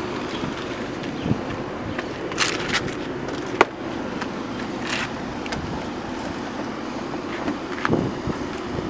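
A car's front bumper cover being carried and pushed into place on the front of the car: scattered knocks and clicks, the sharpest a little over three and a half seconds in, over a steady hum.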